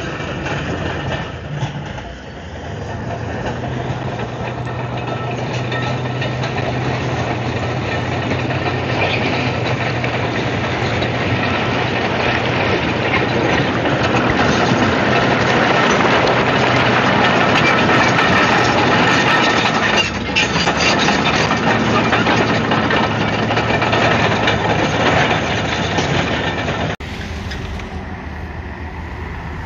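Komatsu D155AX-7 crawler bulldozer's diesel engine running under load with its steel tracks clattering, building louder toward the middle. Near the end the sound cuts abruptly to a quieter engine run.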